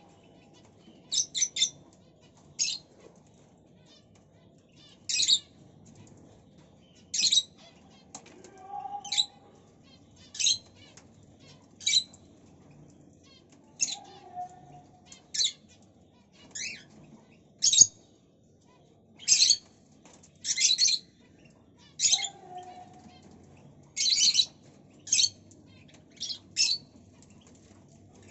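Cockatiel giving short, sharp, high chirps over and over, one every second or two, with a few fainter, lower whistled notes in between.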